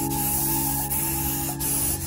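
Aerosol can of ethanol disinfectant spray hissing steadily as it is sprayed.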